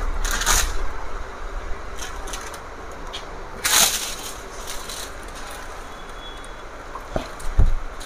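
Low steady showroom hum with two brief rustling scrapes, about half a second in and near four seconds, as a four-door refrigerator's doors and foam packing are handled.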